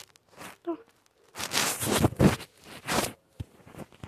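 Bursts of rustling handling noise from plush toys and fabric rubbing close against the microphone, loudest for about a second near the middle and once more shortly after.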